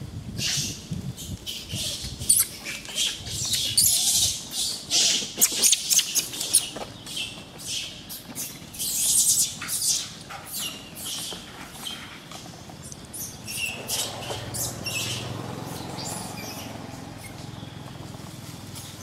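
Rapid, irregular series of short, shrill chirps and squawks from animals, densest in the first half and thinning out later, with a low rumble in the background about fourteen seconds in.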